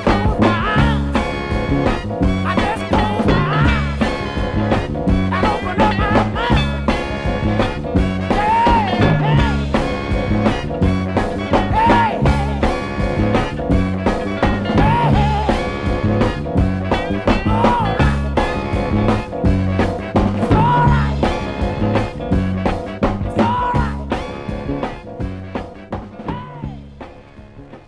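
Instrumental ending of a soul record, with a steady beat and a short melodic phrase repeating about every three seconds, fading out over the last few seconds.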